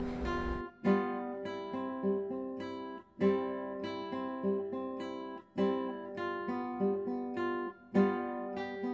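Background acoustic guitar music: plucked notes in a short repeating phrase, with a brief break about every two and a half seconds.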